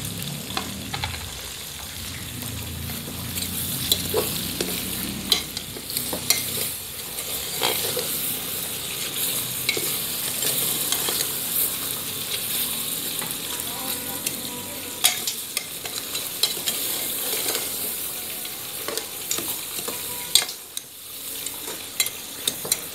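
Pork pieces with onion, garlic and ginger sizzling in hot oil in an aluminium pressure-cooker pot while they brown, stirred with a metal ladle that scrapes and knocks against the pot every second or two.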